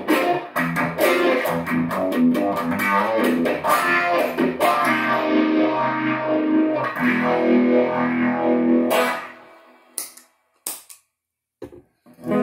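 Electric guitar played through a Stax Trelicopter tremolo, Stax Phaser and Stax Bluesy overdrive pedals chained together. The playing stops about nine seconds in, followed by a few sharp clicks of pedal footswitches being stomped off.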